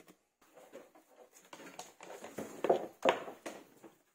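Handling noise: a run of light, irregular knocks and rubbing, with two louder knocks about two-thirds of the way in.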